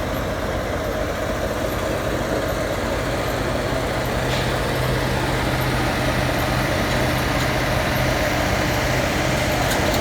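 Heavy vehicle engine running steadily close by, with a low hum that grows stronger partway through.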